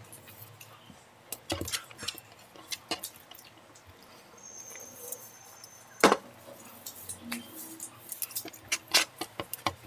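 People eating Maggi instant noodles: chewing and slurping, with scattered clicks and clinks of cutlery against plates. The loudest is a sharp clink about six seconds in.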